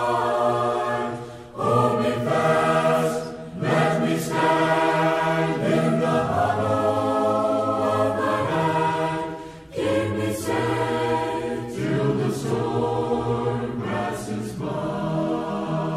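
Choir singing unaccompanied, in long held phrases with brief breaks between them.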